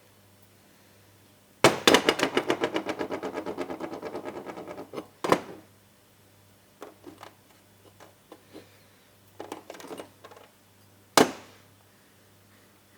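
A loose part of a Honda CB400F clutch basket, taken apart to reach its rubber cush-drive dampers, is dropped onto the bench and rattles fast, about ten clicks a second, dying away over about three seconds. Then come a few scattered knocks and small clicks as the parts are handled, and one sharp knock near the end.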